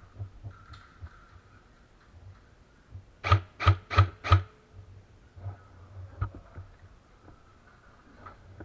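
Airsoft rifle firing four quick shots in a row, about three a second.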